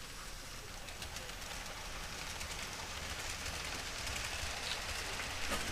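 Model freight train running on the layout behind two SD60M model diesel locomotives: a steady rolling rattle of wheels on track with a low motor hum and light clicks, growing slightly louder.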